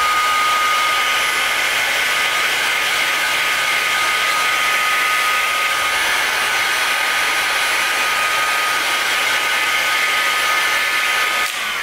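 Handheld electric heat gun blowing hot air, a steady rushing hiss with a thin constant whine, shrinking clear heat shrink tubing over a cable label. It is switched off near the end, and its fan winds down in a falling whir.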